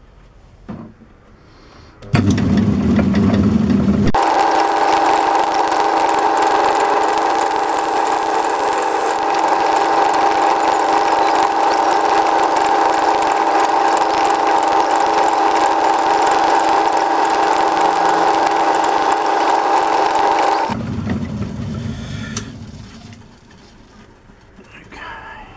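A power tool working steel runs steadily with a high whine and hiss for about seventeen seconds, then winds down. It is being used to break a sharp edge on a steel plate.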